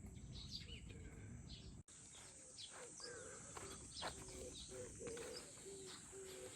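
Birds chirping, with short high calls scattered throughout and a short low note repeating about twice a second after a brief dropout about two seconds in.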